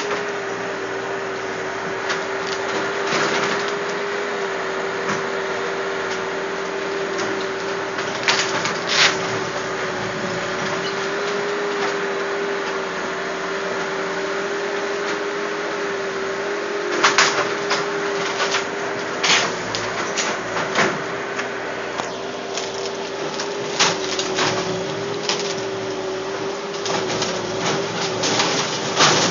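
A machine running steadily with a slightly wavering hum, over which timber cracks, snaps and knocks as a garage structure is torn apart. The breaking comes in scattered clusters, heaviest in the second half.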